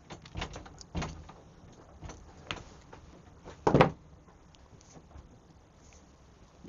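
Scattered handling clicks and knocks from working with wires, connectors and small tools, with one louder knock almost four seconds in.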